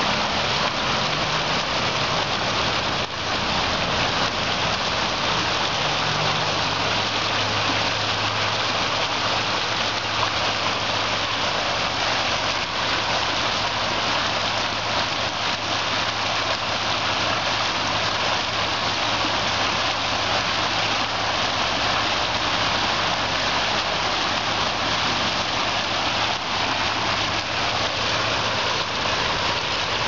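Fountain with several foaming aerated water jets splashing steadily into a round stone basin, a continuous rushing water noise.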